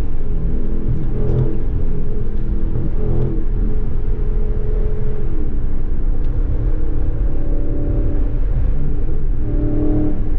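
Dodge Charger Scat Pack's 6.4-litre HEMI V8 running under steady highway cruise at about 70 mph, heard from inside the cabin. The engine note rises and falls slightly a few times as the throttle changes, over steady road noise.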